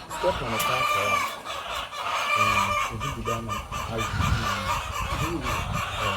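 Chickens clucking, several birds calling in short, separate notes.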